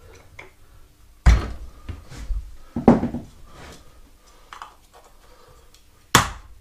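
Tools and metal parts being handled: three sharp knocks with a short clatter after each, about a second in, again a second and a half later, and once near the end, with a few light clicks between.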